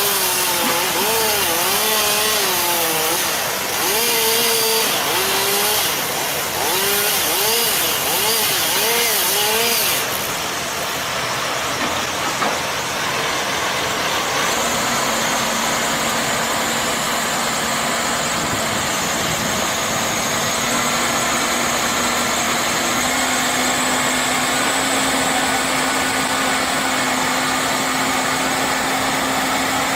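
Chainsaw running and cutting, its engine pitch rising and falling over and over for about the first ten seconds. Then a steady, even engine note carries on.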